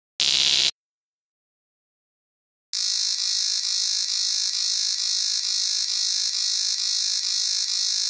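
Electronic error sound effects: a short harsh buzz near the start, then after a pause of about two seconds a long, shrill alarm-like buzz that pulses rapidly for about five seconds and cuts off at the end.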